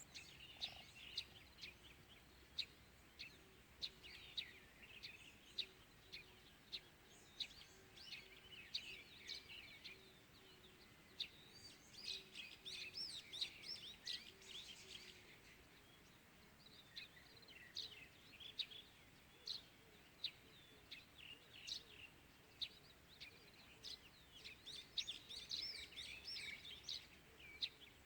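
Small birds chirping and singing in the early morning: a short, sharp chirp repeated about once a second, with bursts of faster twittering song from several birds.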